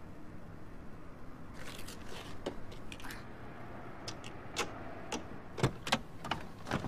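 A short hissing scrape, then a run of sharp clicks and knocks, the loudest a little before the end.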